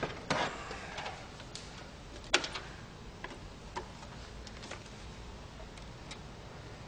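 Scattered clicks and knocks from handling a DVD player and its rear cable, with one sharp knock about two seconds in.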